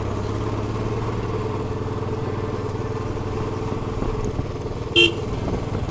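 Royal Enfield Bullet's single-cylinder engine running steadily on the move, a low, even beat, with one brief sharp sound about five seconds in.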